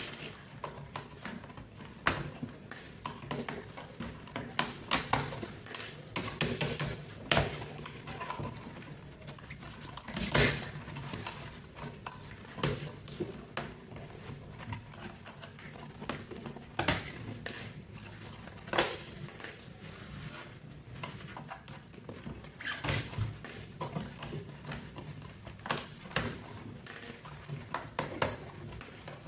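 Mechanical keyboard keycaps being pulled off and handled: irregular light plastic clicks and clinks, with a few sharper knocks.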